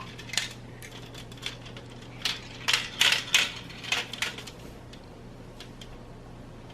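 Mini marbles clicking and clattering down the plastic track pieces of a marble run: a string of sharp clicks, most of them bunched between about two and four and a half seconds in, thinning out after that.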